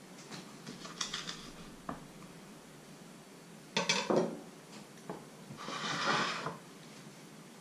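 A kitchen knife chopping green onions on a wooden cutting board, a few light strokes near the start. About four seconds in, a sharp clatter as the knife is set down on the wooden table, then the wooden board scrapes across the tabletop for about a second.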